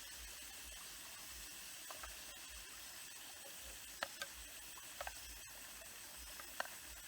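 Faint steady rush of a small stream, with a few short sharp clicks or crackles scattered through it.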